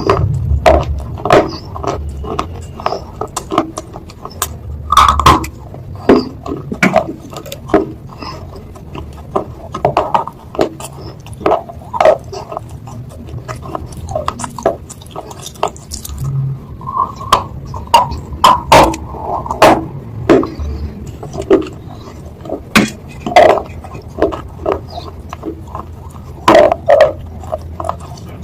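Close-up mouth sounds of someone eating chicken noodles: a run of irregular wet clicks and smacks of chewing, several a second.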